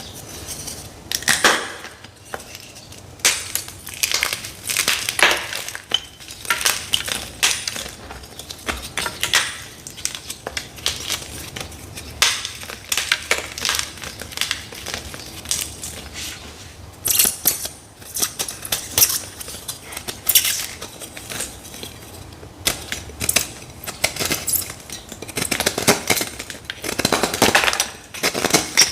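Dyed gym chalk blocks crunching and crumbling close to the microphone, in irregular runs of crisp crackling with short pauses between.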